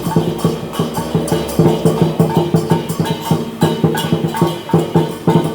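Chinese dragon dance percussion: a drum beaten in a fast, driving rhythm with clashing cymbals ringing over it.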